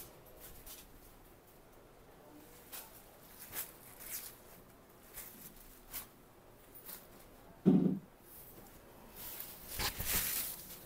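Silk sarees rustling and swishing as they are unfolded and spread out on a table by hand, in short scattered strokes. A short dull thump about two-thirds of the way in is the loudest sound, and a longer swish near the end comes as another saree is flung open.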